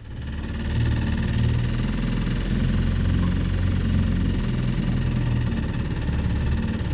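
Boat's outboard engine running steadily under way, starting abruptly at the outset.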